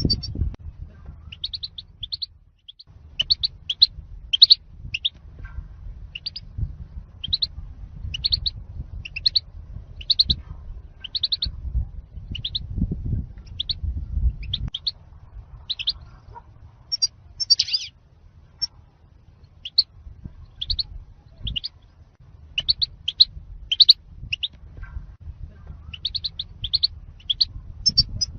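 European goldfinch singing: short, bright, high chirps and twitters, about one a second, over a steady low background rumble.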